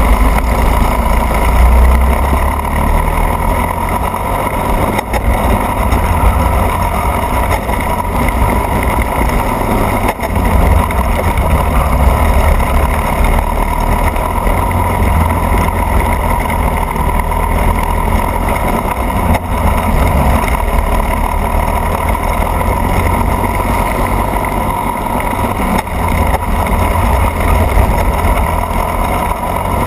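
Racing go-kart engine running hard at speed, heard from on board the kart, loud and continuous with a heavy low rumble beneath. Its level dips briefly a few times.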